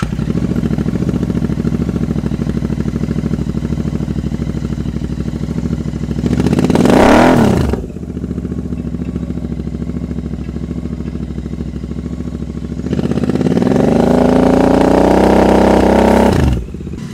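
Royal Enfield Continental GT 650's parallel-twin engine idling just after a cold start, on stock headers with slip-on mufflers. About six seconds in it is blipped once, rising and falling quickly in pitch; from about thirteen seconds it is revved up to around 4,000 rpm and held for a few seconds, then dropped back sharply near the end.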